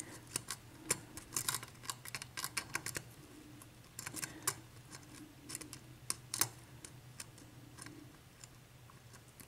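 Lock pick and tension wrench working the pin stack of a 7-pin Dorma mortise cylinder: irregular small metallic clicks and scrapes as pins are lifted and set, while the picker probes for the one pin still unset. The clicks thin out near the end.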